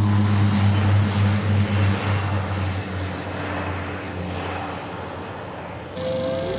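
Pilatus PC-7's PT6A turboprop engine and propeller as the trainer climbs away after take-off: a steady low drone with a hiss that fades as the plane recedes. Near the end the sound switches abruptly to a different, steady engine hum.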